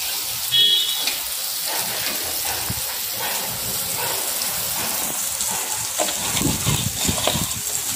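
Fish pieces sizzling in hot oil on an iron tawa, a steady frying hiss. A metal spatula scrapes and taps against the griddle now and then, loudest in a short scrape about half a second in.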